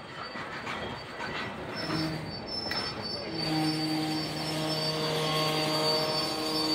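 Diesel-era train moving, with a thin, high, steady steel-wheel squeal. A steady low engine hum comes in about two seconds in and firms up a second later as the sound grows louder.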